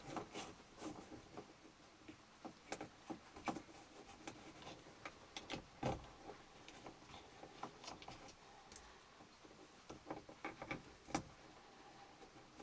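Faint, irregular clicks and small taps of screws being set and driven into thin wood wall paneling to mount a thermostat, with a louder knock about six seconds in and another near eleven seconds.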